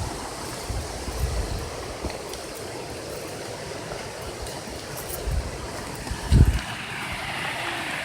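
Steady rush of water from a small waterfall and its stream, growing a little louder near the end. A few brief low bumps, about one, five and six and a half seconds in, break through the water.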